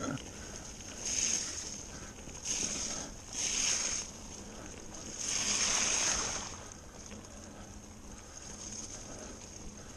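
Mountain bike tyres rolling through wet mud, with splashy, squelching bursts about a second in, twice more around three seconds, and a longer one around five to six seconds.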